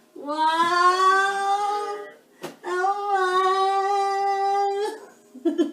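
A voice singing or humming two long held notes, the first rising slightly at its start and the second steady, with a short knock between them.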